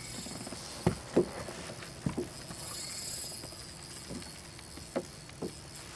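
About half a dozen scattered knocks and thumps on a fishing boat over a steady background hiss, while a hooked bass is reeled in on a bent spinning rod. The two loudest knocks come about a second in.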